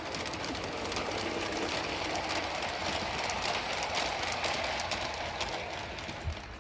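Bachmann G-scale Diesel model locomotive and its tank wagons rolling past on garden railway track: a steady rumble of wheels with many light clicks. It grows louder as the wagons pass close, about four seconds in, then eases off.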